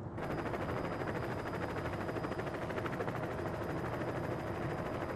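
Helicopter rotor chopping in a fast, even beat, with a steady high turbine whine over it.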